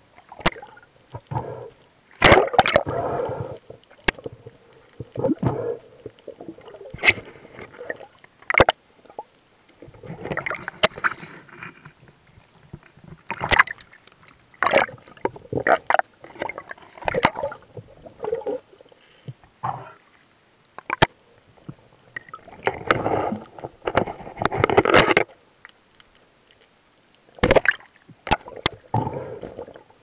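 Water sloshing and gurgling around an underwater camera, in irregular bursts a second or two long, with sharp clicks and knocks scattered between them.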